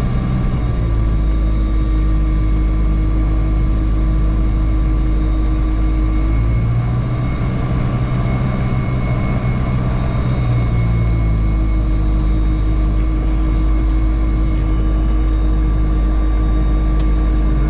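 Diamond DA40's piston engine and propeller running at low taxi power, heard inside the cabin as a steady drone. The engine note changes for a few seconds around the middle, then settles back.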